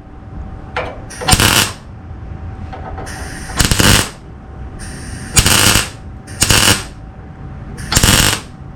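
Electric welder laying short runs of weld on sheet-steel body panel, five brief bursts a second or more apart, with a low hum between them.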